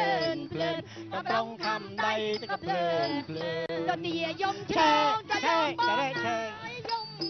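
Music: a Khmer song, a voice singing over instrumental accompaniment with sustained low notes.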